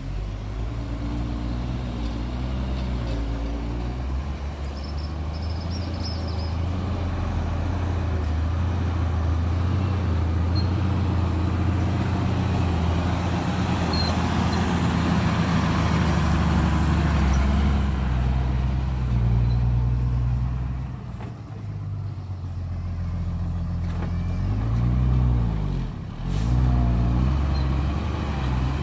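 Heavy diesel engine of construction machinery running under load. It grows louder toward the middle, dips briefly, then revs up and back down twice near the end.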